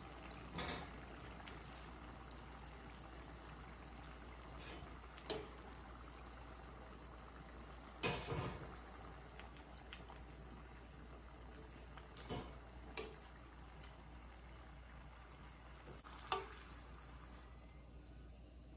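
Egg rolls frying in hot oil: a faint, steady sizzle, broken by about six short clicks of metal tongs against the pan and the wire rack as the rolls are lifted out. The sizzle thins near the end as the last rolls leave the oil.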